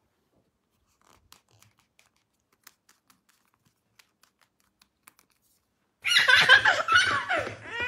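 Faint scattered scratches and clicks, then, about six seconds in, a loud burst of high-pitched vocalising from a young child, its pitch sliding up and down.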